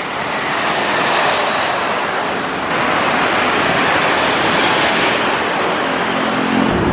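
Jet airliner passing low overhead on landing approach: a rushing engine noise that grows fuller about three seconds in and is strongest as the plane crosses, mixed with the running of motorbikes and cars on the road below. A lower engine hum from the road traffic comes up near the end.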